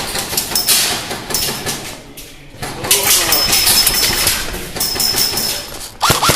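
Airsoft electric guns firing rapid full-auto bursts, a fast run of mechanical clicks with a motor whine, broken by a short lull about two seconds in. A new, evenly paced burst starts near the end.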